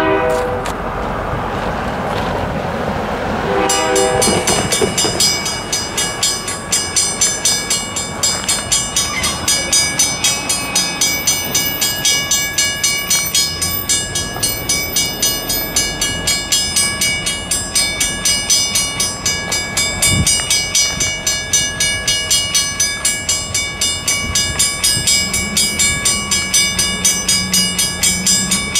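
A railroad grade-crossing bell ringing steadily at about three strikes a second, starting about four seconds in as the crossing activates. Before it starts, a train horn blows.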